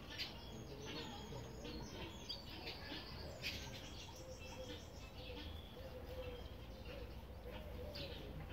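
Birds chirping: many short, high chirps in irregular succession, with a faint low wavering call underneath from about four seconds in.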